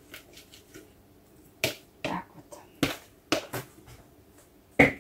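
Hands working a soft, sticky water-based yeast dough: a series of short wet slaps and squelches, about six in the last three seconds, the loudest near the end.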